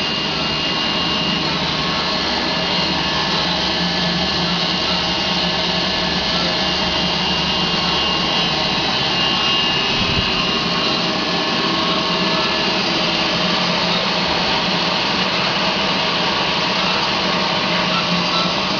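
Steelmaster H-400HA automatic column bandsaw running steadily: a dense, even machine whir with a faint high whine over it. A single brief low thump comes about halfway through.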